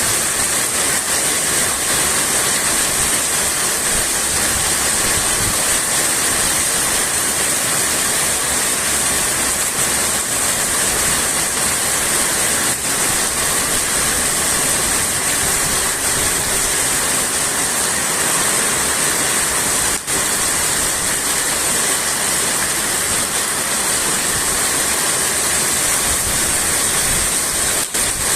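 Heavy rain pouring down onto a roof, a dense, steady rush with no let-up.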